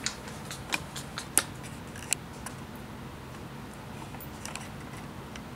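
Light, scattered clicks and taps of a ceramic mug being handled and lifted by ringed fingers, the two loudest about a second and a half and two seconds in, over a low steady hum.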